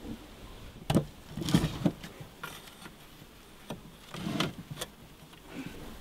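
A wooden, mesh-sided bee box knocking and scraping against the bee vacuum's housing as it is worked out by hand. There is a sharp knock about a second in, then a few softer knocks.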